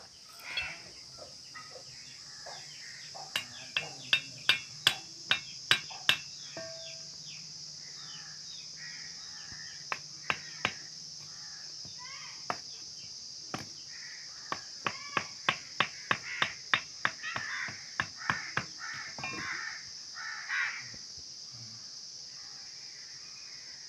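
Knife blade striking and chopping into a dried palmyra palm fruit as it is carved. The sharp knocks come in runs of about two a second, a few seconds in, briefly in the middle, and densest toward the end.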